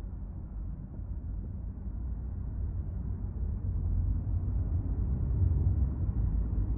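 Low, muffled rumble of a car driving on an expressway: road and engine noise, steady, growing louder over the second half.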